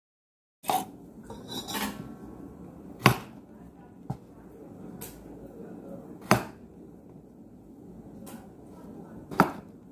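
Kitchen knife peeling the ridged skin off an angled luffa gourd over a cutting board, starting about half a second in: soft scraping of the blade along the gourd, broken by sharp knocks of the knife against the board every one to three seconds.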